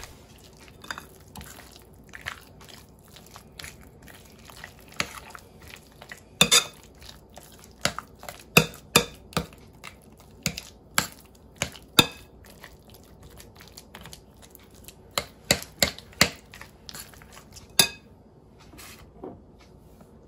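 Metal fork stirring and mashing a thick, creamy cream-cheese and mayo filling in a ceramic bowl, its tines clinking against the bowl in irregular sharp taps. The clinks thin out near the end.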